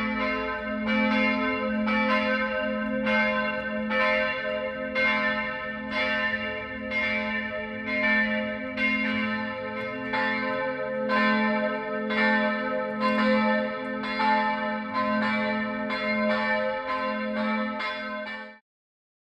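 Church bells ringing, struck about one to two times a second, each stroke ringing on so that the strokes overlap. The sound cuts off suddenly near the end.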